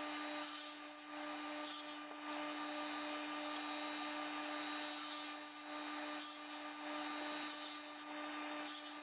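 6-inch bench grinder fitted with Razor Sharp Edge paper wheels running with a steady hum, while a hunting knife's edge is drawn across the spinning paper wheel in light passes, rubbing as the edge is polished and its burr worked off.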